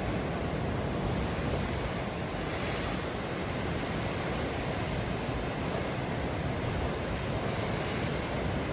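Pacific Ocean surf washing steadily on the shore, a continuous rushing wash with no distinct breaks.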